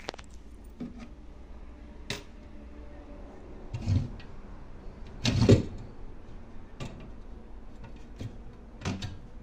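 Household handling sounds: scattered clicks and knocks of things being moved, with a louder thump and rustle about four seconds in and the loudest about five and a half seconds in.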